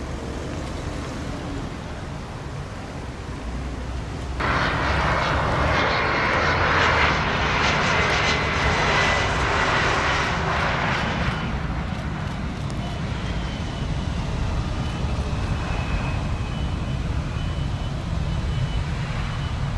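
Jet engines of a Bombardier CRJ regional jet on landing: after a steady low rumble, a loud rush of jet noise with a high whine cuts in about four seconds in. It eases off about halfway through, leaving a fainter rumble and whine as the jet touches down and rolls out.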